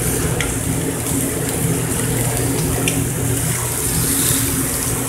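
Chicken wings sizzling on a commercial char-grill: a steady hiss over a constant low machine hum.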